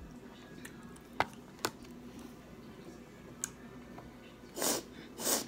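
Eating pho: a few sharp clicks of chopsticks and a plastic spoon against the plastic takeout container, then two short slurps near the end.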